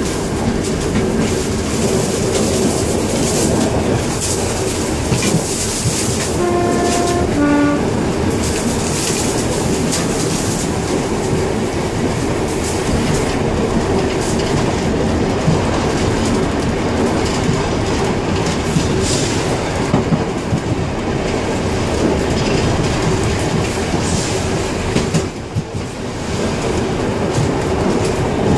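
Vintage electric tram running along its track, heard from the driver's cab: a steady rumble of wheels on the rails with clicking rail joints. About six seconds in, a short two-note horn sounds, a higher tone and then a lower one.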